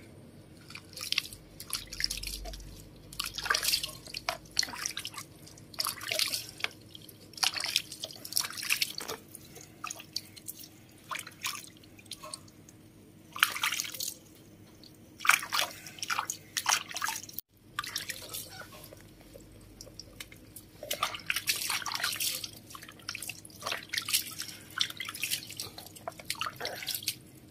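Water splashing and dripping in irregular bursts as a soapy baby monkey is washed and rinsed by hand over a basin.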